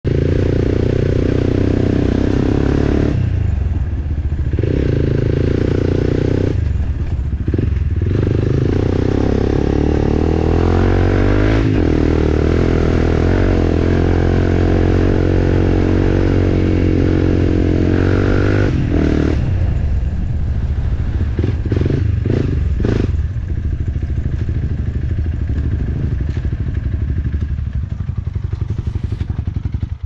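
Dirt bike engine heard onboard, running under load over a rough track. The engine note drops away briefly about three seconds in, again near seven seconds and near nineteen seconds, then turns choppy and uneven from about twenty seconds on as the bike slows.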